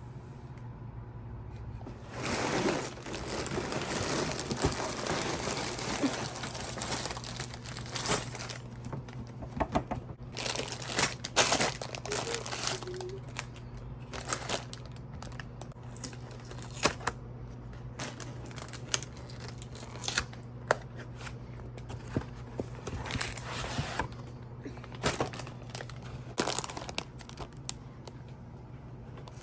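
Crinkling and rustling of something being handled, strongest a couple of seconds in, then a run of scattered sharp clicks and knocks, with a steady low hum underneath.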